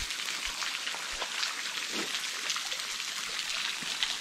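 Small cave waterfall trickling and splashing over flowstone: a steady watery hiss with many scattered little splashes.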